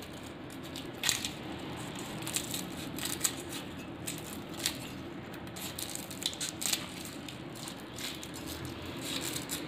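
Scissors snipping through lemongrass stalks: irregular short snips every second or so, over a steady low hum.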